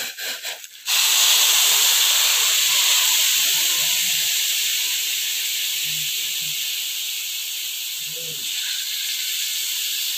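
Boiling water poured onto vermicelli just roasted in ghee in a hot pan, hissing loudly as it hits the hot metal and turns to steam. The hiss swells suddenly about a second in and slowly dies down.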